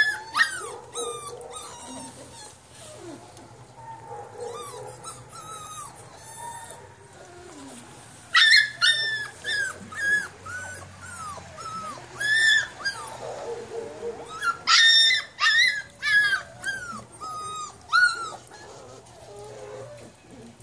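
Puppy whining and yelping in a long run of short, high-pitched cries, many sliding down in pitch. The cries are loudest around eight to nine seconds in and again from about twelve to eighteen seconds in.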